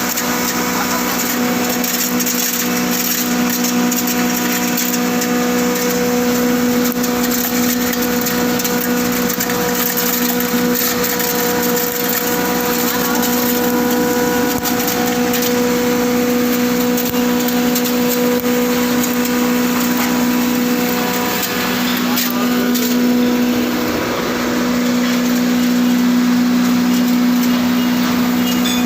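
Wood chipper running with a steady hum, with dense irregular crackling and cracking as wood goes through it.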